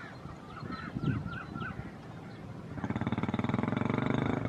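Birds call in a quick series of wavy notes; then, about three seconds in, the engine of an approaching diesel-electric locomotive rises into a steady, rapidly pulsing drone that becomes the loudest sound.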